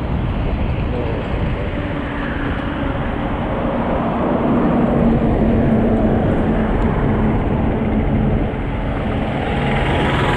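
Riding noise on a motorbike in traffic: wind rushing over the camera microphone over the bike's running engine. A low engine drone grows louder about halfway through, while a heavy truck runs alongside.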